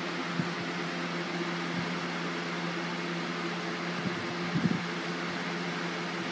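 Steady low hum and hiss of a running fan-like appliance, with a few faint soft knocks, the clearest about four and a half seconds in.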